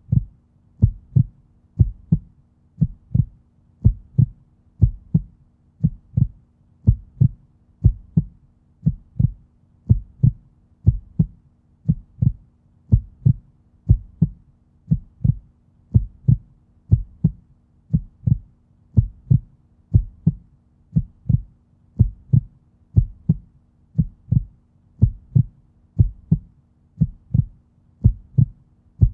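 Human heartbeat: a steady, even rhythm of deep double thumps (lub-dub), about one beat a second.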